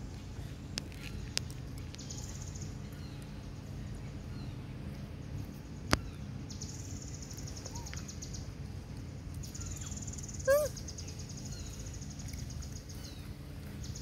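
High, finely pulsed insect buzzing, typical of cicadas, comes and goes over a steady outdoor background. A sharp click comes about six seconds in, and a single short squeaky call with a falling pitch comes about ten seconds in.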